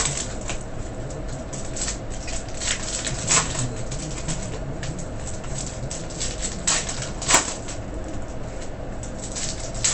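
Scattered short rustles and sharp clicks of trading-card packs and wrappers being handled, with louder clicks about three and seven seconds in.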